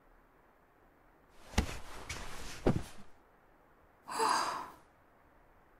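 Soft breathy sounds from a girl's voice: a sigh lasting about a second and a half, then a short gasp about four seconds in.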